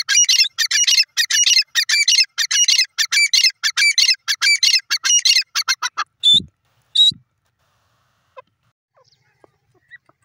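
Grey francolin (teetar) calling: a fast run of harsh, repeated notes for about six seconds, then two single louder notes about a second apart.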